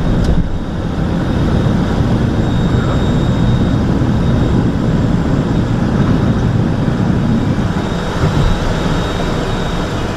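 Cessna Citation XLS's twin turbofan engines at takeoff power, heard from inside the cabin through the takeoff roll and lift-off: a steady, loud rush of engine and airflow noise with a faint high whine over it.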